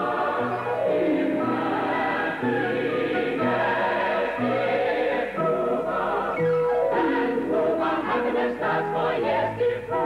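Music: a choir singing with instrumental accompaniment, the voices holding notes with vibrato.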